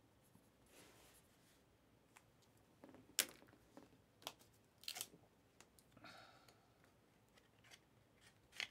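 Quiet handling of trading cards and a paper label: a few sharp clicks and taps, with a short rustle about six seconds in.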